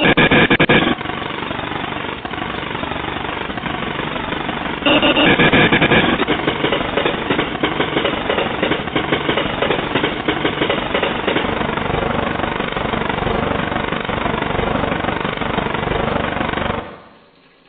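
A loud, dense, rapid clattering noise that starts abruptly, swells louder for about a second some five seconds in, and stops abruptly near the end.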